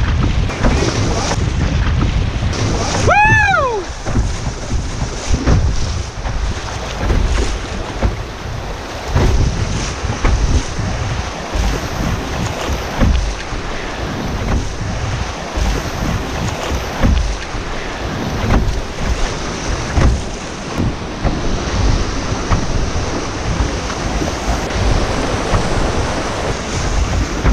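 Rushing whitewater of a river in spring flood, with wind buffeting the microphone in a gusty low rumble. Two brief high-pitched calls rise and fall, about three seconds in and again at the very end.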